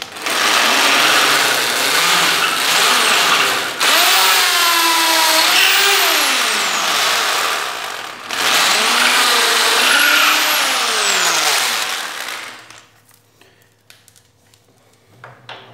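Electric drill with a 10 mm bit boring into a wooden chair leg, run in three bursts of about four seconds each with brief breaks between. The motor's whine slides down as it slows at the end of the second and third runs.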